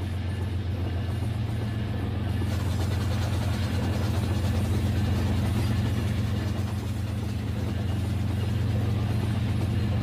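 Battery-powered toy trains running on plastic track, their electric motors making a steady low hum.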